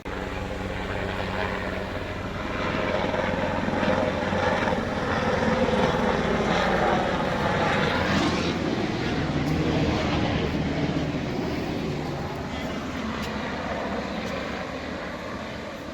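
A low-flying Coast Guard propeller aircraft passing overhead. Its engine drone swells to its loudest around the middle and fades toward the end.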